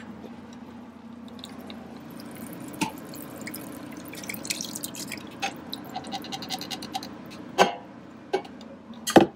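Thick cream sauce poured from a glass measuring cup into a hot Instant Pot steel inner pot, pouring and dripping onto the chicken, with a few sharp knocks, the loudest near the end.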